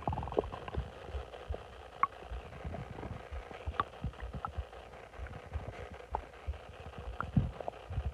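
Bloated stomach gurgling: a string of small pops and bubbling clicks over low rumbles from the gut, with a short squeaky gurgle at the start.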